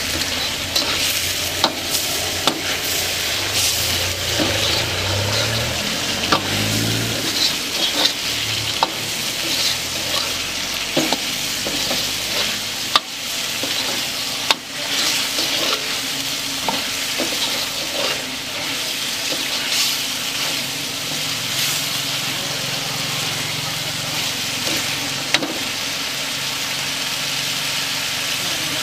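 Chicken masala sizzling and frying in a large iron kadai while a metal ladle stirs and scrapes through it. Frequent sharp clanks come from the ladle striking the pan.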